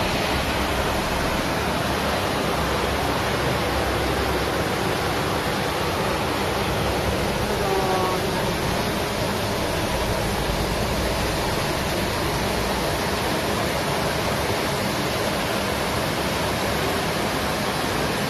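Floodwater rushing through a street and pouring down a flight of steps as a fast torrent, a steady loud rush of water.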